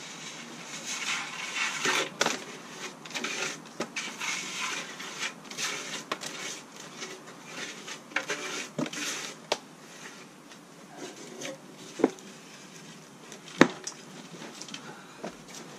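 Concrete mixer churning a wet mix of ballast and cement: gritty scraping and clattering of stones in the drum, with two sharp knocks near the end.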